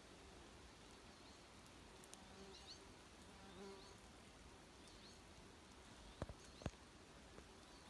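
Bumblebees buzzing faintly at their nest in a wooden nest box, the buzz swelling briefly a couple of seconds in. Faint high chirps recur throughout, and two sharp clicks come close together near the end.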